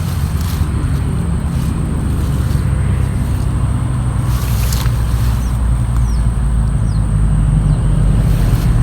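A small engine running steadily under way, a low, even drone.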